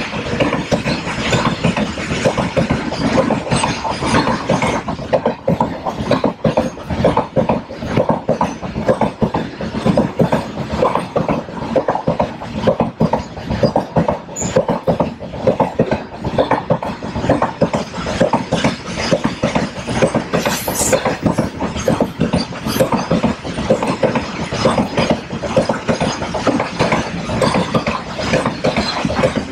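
Indian Railways freight train of covered wagons rolling past at speed, its wheels clattering on the rails in a dense, continuous stream of clicks.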